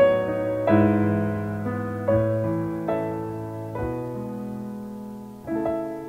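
Background piano music: slow chords struck about once a second or so, each left to ring and fade.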